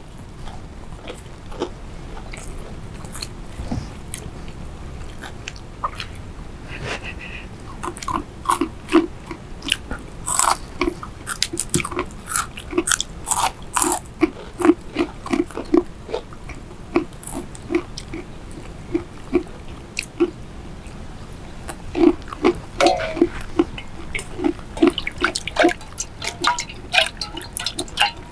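People chewing and crunching food eaten by hand: many short crunches and mouth smacks, coming thickest from about eight seconds in.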